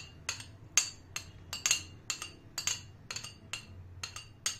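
Metal spoon clinking and scraping against a ceramic plate while scraping chopped coriander off it: a dozen or so sharp, ringing clinks at an irregular two to three a second.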